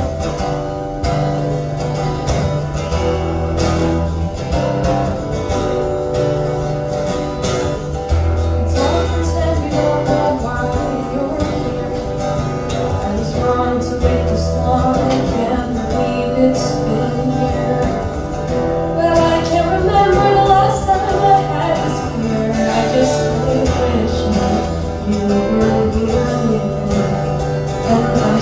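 Music: the instrumental introduction of a live song, guitar playing a repeating chord pattern over sustained low notes.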